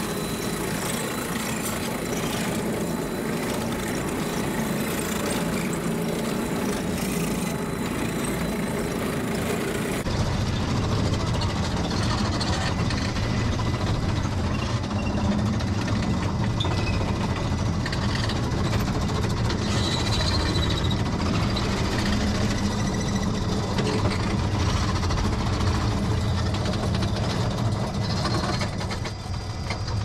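Steep-grade rail monorail car's drive unit running steadily with a mechanical rattle as the car travels along its rail. About ten seconds in the sound turns deeper, and it drops off near the end as the car slows at the platform.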